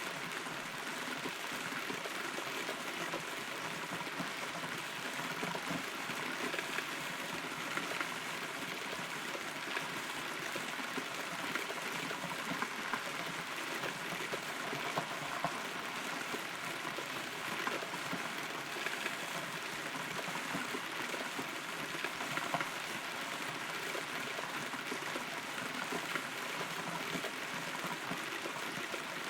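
Steady rain pattering, with individual drops ticking, heard from inside a hollow rotten tree trunk.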